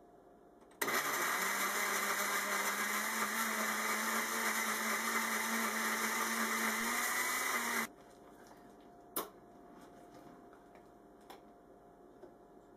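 Countertop blender with a glass jar pureeing whole strawberries: switched on about a second in, running steadily for about seven seconds with its motor pitch rising slightly near the end, then switched off. A single sharp click follows about a second after it stops.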